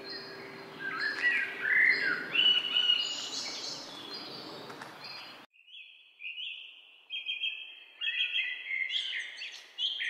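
Birds chirping and calling, many short overlapping chirps over a faint hiss. A little past halfway the hiss cuts off abruptly and the chirps carry on, sparse at first and busier near the end.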